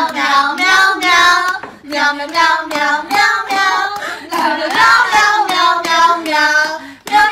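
A high voice singing a melody in a string of held notes, loud and continuous with a brief break near the end.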